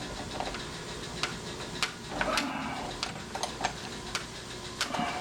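Metal parts of a door lock being fitted by hand: irregular sharp clicks and clinks, with a short scrape about two seconds in.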